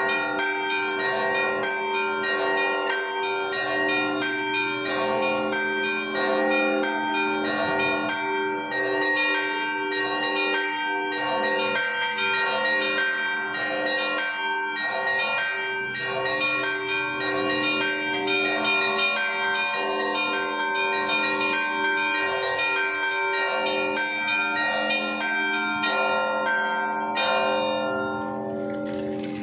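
Russian Orthodox church bells ringing a Sunday peal: small high bells struck in a rapid repeating pattern over the long, ringing tones of larger bells. The small bells stop near the end while the lower bells ring on.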